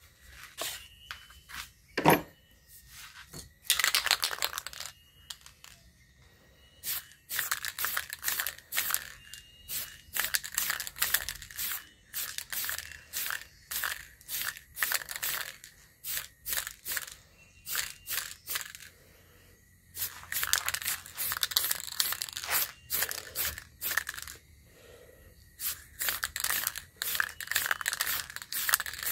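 Repeated hand strokes of something rubbing or scraping, about two a second, in two long runs, after a single sharp knock and one longer stroke near the start.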